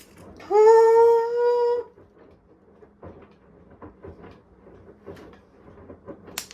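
One high, drawn-out cry just over a second long, rising at its onset and then held, followed by faint scattered clatter and a sharp click near the end.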